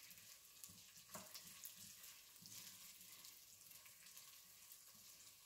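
Faint sizzling and crackling of pearl barley frying in hot oil in a stainless steel pot, being toasted until golden, with soft knocks of a wooden spoon stirring it.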